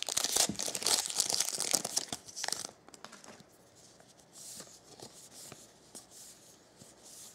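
A trading-card pack wrapper being torn open, crinkling and crackling for the first two and a half seconds or so. After that come the much quieter rustle and small clicks of cards being thumbed through.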